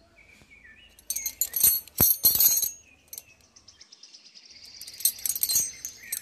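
Small steel chain jingling and clinking as it is handled, in a few short bursts, with faint bird chirps near the start.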